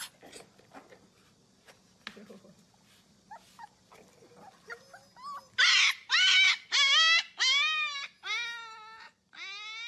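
A Siberian husky puppy makes a few faint whimpers, then about five and a half seconds in breaks into a run of about seven loud, short, wavering howls, the last one rising in pitch.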